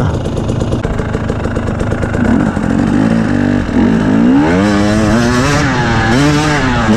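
Two-stroke single-cylinder engine of a KTM 250 EXC TPI dirt bike, running at low, steady revs. About three seconds in it revs up, then its pitch rises and falls with the throttle as the bike climbs a steep, rocky slope.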